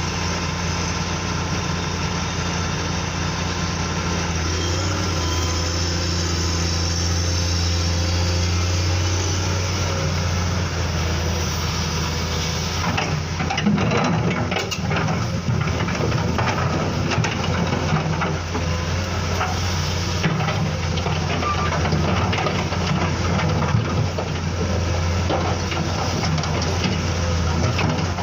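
Steady idling engine sound of an RC construction vehicle, a low even hum. From about halfway through, scattered clicks and rattles sound over it.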